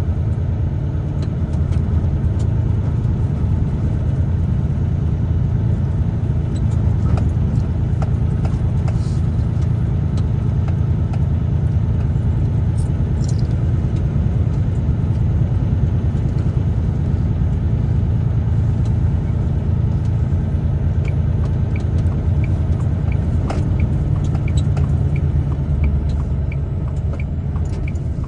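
Steady low rumble of a truck driving on the road, engine and tyre noise heard inside the cab. Near the end a light, regular ticking comes in, about twice a second.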